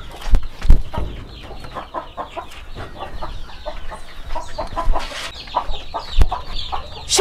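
Chickens clucking with many short, repeated calls, broken by a few dull thumps, two within the first second and one about six seconds in.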